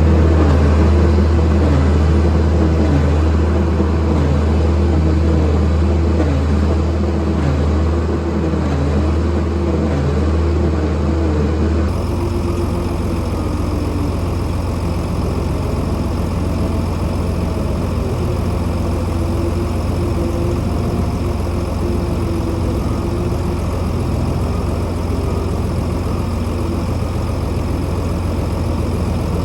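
A heavy farm machine's engine running steadily with a deep hum. Its pitch wavers up and down in the first part, and the sound changes abruptly about twelve seconds in.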